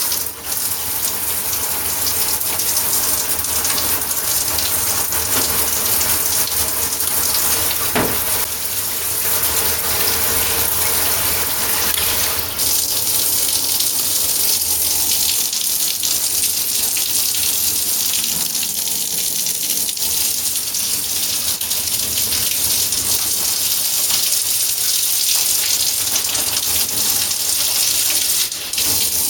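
Shower head spraying water in a steady rush. The flow-restricting O-ring has been taken out of its inlet to get more flow.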